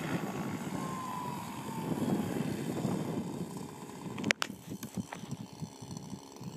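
Synergy N5 nitro RC helicopter, YS 56 glow engine with a Hatori tuned pipe, running with its rotor as it descends and lands, with a falling whine about a second in. A few sharp clicks come just past four seconds in, then the sound is quieter and uneven as it sits on the ground.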